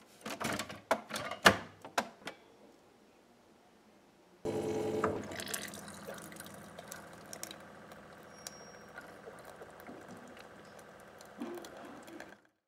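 Keurig single-cup brewer: a few sharp clicks as the lid is shut and the machine is set going. About four seconds in, its pump starts suddenly with a steady hum and hot water streams into a ceramic mug, easing off gradually until it stops near the end.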